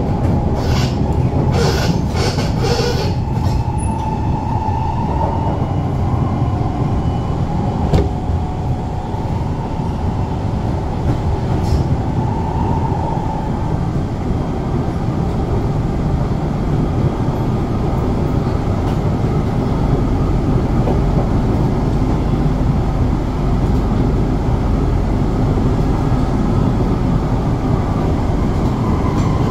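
SMRT C651 metro train running at speed, heard from inside the carriage by the door: a steady rumble of wheels on rail. A run of sharp clicks comes in the first few seconds, and a single knock about eight seconds in.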